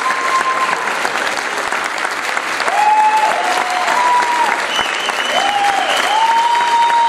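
Sustained audience applause, with a series of held tones that step up and down in pitch sounding over it.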